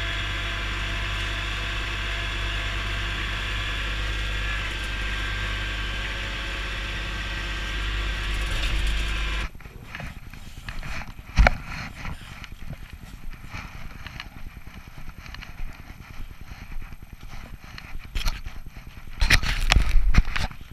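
Kubota B7610 compact tractor's three-cylinder diesel engine running steadily, heard from inside its cab; it gets a little louder and then cuts off suddenly about nine seconds in. After that a hand snow shovel scrapes and crunches through snow, with sharp knocks about a second later and again near the end.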